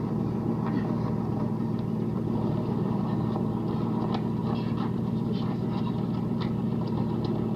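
A car engine running steadily at idle, with faint scattered taps over it in the second half.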